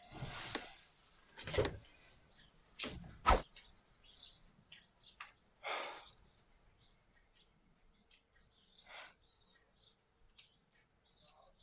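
A person settling into a folding metal-framed balcony chair: a rustle and four sharp knocks in the first three and a half seconds. After that, faint bird chirps come and go.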